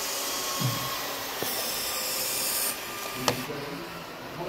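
Radio-controlled model construction machines at work: a whirring of small motors and a rubbing, rustling sound of loose granules, with a sharp click about three seconds in.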